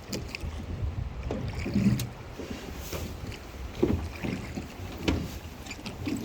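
River water moving around a small boat, with wind rumbling on the microphone and a few light knocks about two, four and five seconds in.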